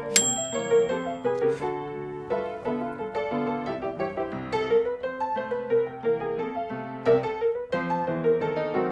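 Background piano music, a run of notes without pause, with a brief high ring just at the start.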